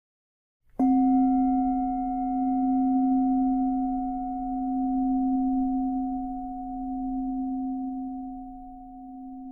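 A meditation bell struck once, about a second in, ringing on as a low tone with fainter higher overtones that slowly fades with a gentle wavering in loudness. This is the bell that marks the end of a three-minute timed meditation.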